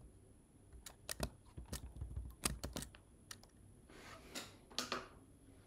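Light computer keyboard and mouse clicks, scattered and irregular through the first few seconds, from selecting and copying text. Two soft rustling sounds follow near the end.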